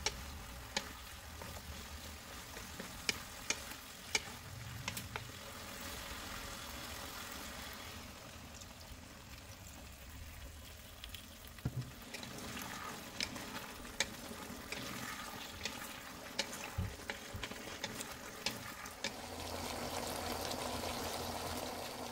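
Chicken and vegetables sizzling in a pan as they are stirred, with sharp clicks of the wooden spatula against the pan. The sizzle grows louder near the end.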